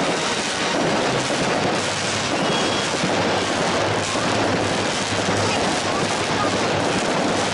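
Aerial fireworks display: a dense, continuous barrage of overlapping bangs from shell bursts, with no gaps between them.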